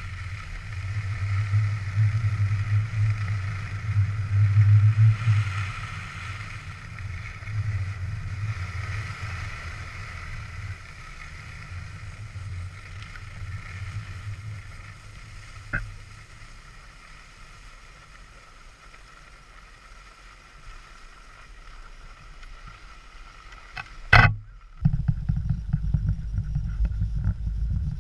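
Skis sliding on groomed snow under a low wind rumble on the camera's microphone. The rumble swells over the first few seconds and then eases off. Near the end there is a sharp burst, then a steadier low wind rumble.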